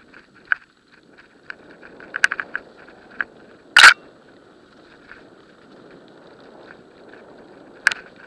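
Mountain bike rolling fast down a dirt forest track: steady tyre rumble with frequent sharp clicks and rattles from the bike over bumps, and one loud clatter about four seconds in.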